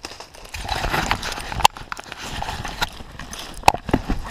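Running footsteps crunching and thudding through dry fallen leaves in woodland, with a couple of sharp knocks along the way.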